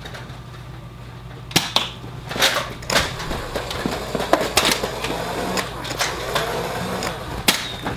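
Scattered sharp clicks and knocks, about eight at irregular intervals, as a player moves through a house carrying a Nerf dart blaster. A low steady hum runs underneath.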